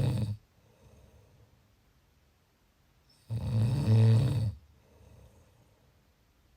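Snoring: the end of one snore right at the start, then a single loud, low-pitched snore a little past halfway that lasts just over a second, with faint breathing in between.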